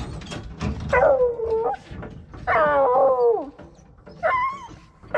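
Deer-hunting dogs howling: three drawn-out calls, each falling in pitch, the last one shorter. A few light knocks come just before the first howl.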